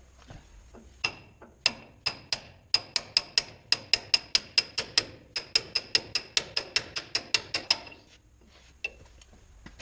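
A hammer striking steel in a long run of ringing blows. The blows start slowly, speed up to a steady five or so a second, and stop near the end. They are knocking apart a hydraulic steering cylinder during disassembly.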